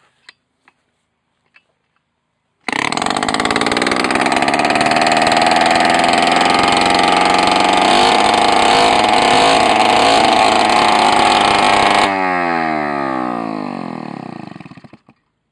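Yamaha 50D 50cc motorcycle engine on a makeshift bench-test rig catching and starting abruptly about two and a half seconds in, then running at a steady high note for about nine seconds. It then cuts out and its note falls steadily as it spins down to a stop: a first test run showing the engine works.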